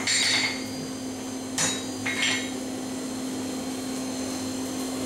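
Blacksmith's hand hammer striking hot steel on an anvil: a few sharp blows with a brief metallic ring in the first two and a half seconds. After that only a steady hum remains.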